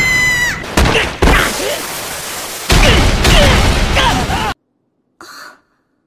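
Anime sound effects of a tumbling crash: sharp thuds, then a long rushing noise, with characters' strained grunts and cries over it. All of it cuts off abruptly about four and a half seconds in, and a brief soft noise follows.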